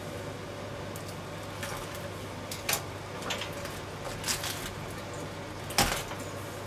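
Knife cutting and scraping through a whole grilled duck on a wooden cutting board: scattered short cuts and scrapes, with a sharper knock on the board near the end.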